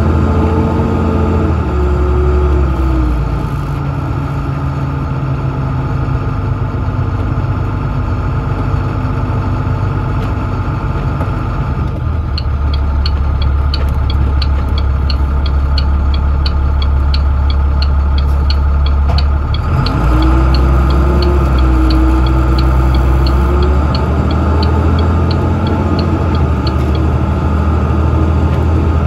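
International CE300 school bus's 7.6 L MaxxForce DT diesel running as the bus drives slowly, heard from inside the cab. Revs drop about two seconds in, hold low, then climb again about twenty seconds in. A quick regular ticking, about two a second, starts near the middle and stops shortly before the end.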